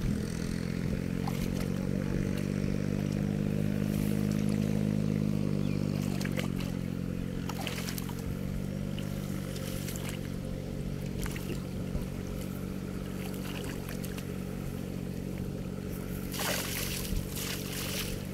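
A small engine running steadily, swelling louder a few seconds in and then settling back. Near the end, water splashes as the fisherman works the cast net in the flooded paddy.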